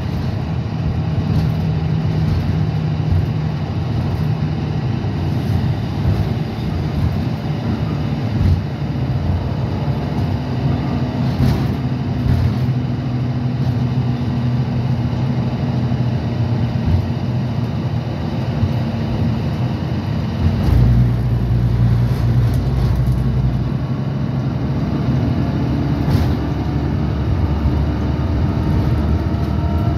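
Interior of a 2015 Gillig Advantage 29 ft low-floor transit bus on the move: its Cummins ISL9 diesel engine running under steady road and tyre noise. There is a heavier low rumble for about two seconds past the middle, and a faint rising whine near the end.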